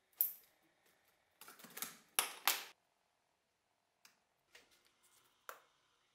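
Short clicks, knocks and scrapes from hands handling the electrolysis setup's clip leads and the cleaver in its plastic bucket. A sharp click comes just after the start, then a quick cluster of scraping clicks, then a few scattered single knocks.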